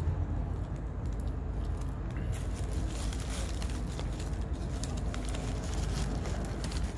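A paper sandwich wrapper crinkling and rustling as it is handled, in irregular crackles from about two seconds in, over a steady low rumble.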